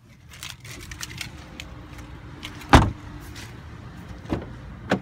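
A 2018 Ford Escape's door shutting with one loud thump a little under three seconds in, over steady rustling, then two lighter knocks near the end.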